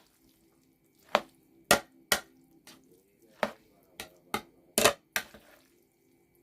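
A spoon knocking against a bowl as pasta salad is stirred: a series of about eight sharp, irregular clacks.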